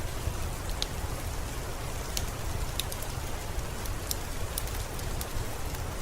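Steady rain, an even hiss with a low rumble beneath it, broken by scattered sharp ticks of individual drops.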